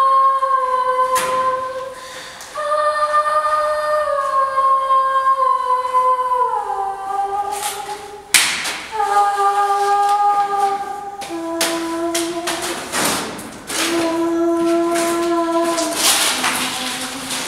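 Unaccompanied, wordless singing: a voice holding long notes of a second or two each, stepping down in pitch from one note to the next, with short sharp noises between the phrases.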